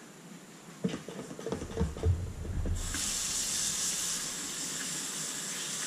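A few knocks and handling sounds, then, about three seconds in, a kitchen tap is turned on and runs with a steady hiss of water.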